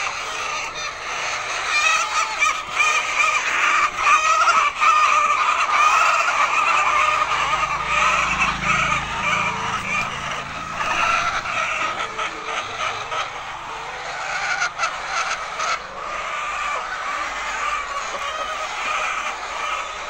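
A large flock of laying hens in a poultry house, clucking and squawking all together in a dense, continuous chorus. A low hum comes in for a few seconds partway through.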